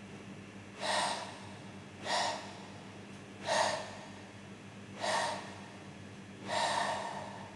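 Male tortoise mounted on a female, giving five short breathy calls with its mouth open, spaced about a second and a half apart: a tortoise's mating calls.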